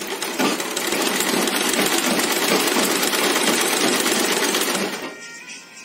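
Black domestic sewing machine running in one continuous stitching run through cotton blouse fabric, with a rapid, even needle chatter. It stops about five seconds in.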